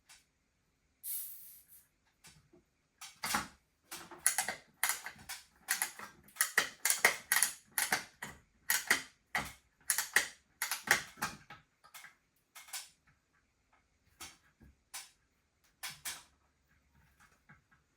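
Irregular run of short clicks and rattles from hand work on the hanging cable's hardware, dense for about ten seconds, then thinning out.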